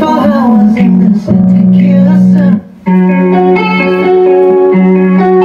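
Music with guitar played back through a small mixer and amplifier into loudspeakers as a sound check. It cuts out briefly about two and a half seconds in, then carries on.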